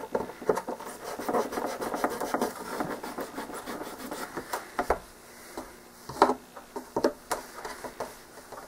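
Scraping and rubbing along the hinge line of a model airplane's tail surface, cleaning off excess epoxy from around nylon pinned hinges, as a dense scratchy rasping for about five seconds. A few sharp clicks follow about six to seven seconds in, as the hinged surface is worked.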